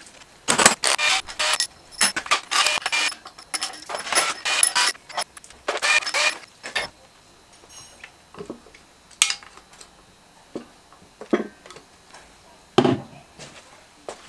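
Ratchet wrench clicking in four quick runs as bolts are wound out of the engine, then scattered metal clinks and one heavier clunk near the end.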